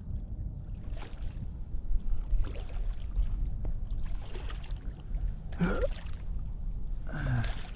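Wind rumbling and buffeting on the microphone, with a few short knocks and splash-like noises and two brief gliding squeaks during a fight with a big catfish on rod and reel.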